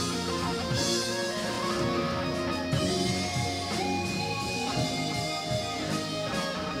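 Guitar-led music playing at a steady level.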